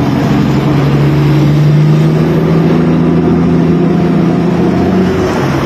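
A large truck's engine running close by, a steady drone over street traffic noise, which stops about five seconds in.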